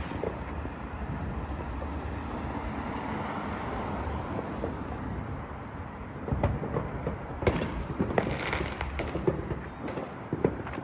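Fireworks going off: a steady rumbling hiss, then, from a little past halfway, a rapid run of sharp cracks and pops.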